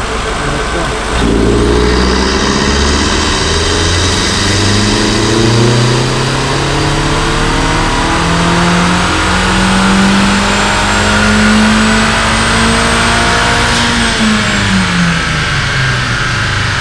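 Stock Volkswagen Mk4 GLI 1.8T 20-valve turbocharged four-cylinder making a full-throttle pull on a chassis dynamometer. The revs climb steadily from about a second in for some twelve seconds, then fall back near the end.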